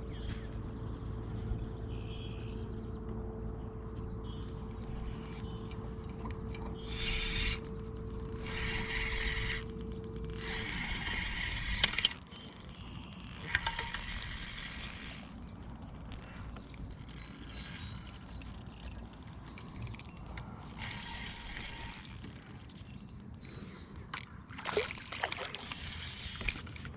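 A small motor humming steadily, stopping about eleven seconds in, followed by a softer irregular hiss with a few light knocks.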